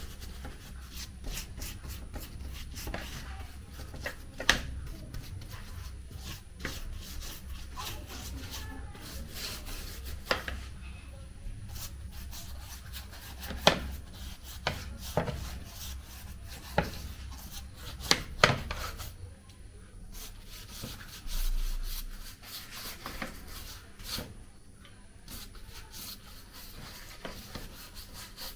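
Silicone pastry brush rubbing and dabbing glaze onto risen bread dough in metal loaf tins, a soft repeated brushing with scattered light taps and a few sharper clicks.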